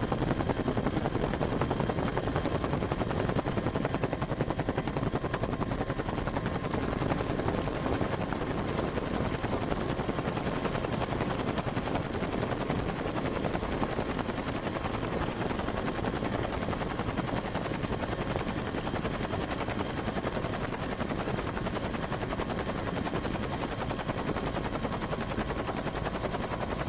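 Helicopter rotor and engine heard from on board, a rapid, even beating with a steady high whine over it.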